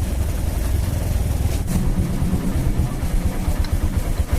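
Honda H100S motorcycle's two-stroke engine running at a steady idle, with an even, rapid low pulsing.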